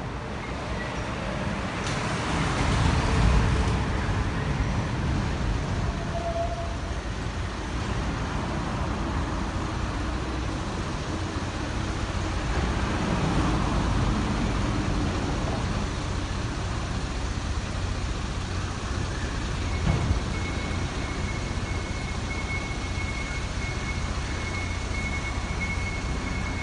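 City buses idling and moving at a station bus terminal: a steady low diesel-engine and traffic rumble, with a louder surge of noise about two seconds in. A thin, steady high tone joins about twenty seconds in.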